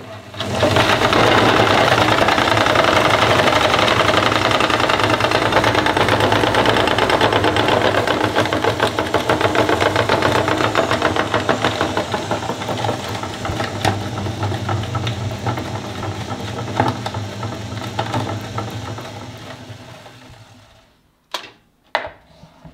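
Motor-driven meat grinder with a red flywheel running and crushing hard candy, a loud, dense crunching rattle. The grinding thins out and fades over the last several seconds as the machine winds down and stops, and two sharp clicks come near the end.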